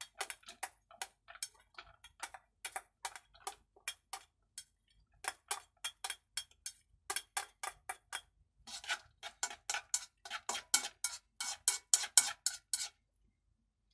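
Chopsticks clicking and scraping against a stainless steel bowl in quick, uneven taps, several a second, as diced vegetables are pushed out of it; the taps stop near the end.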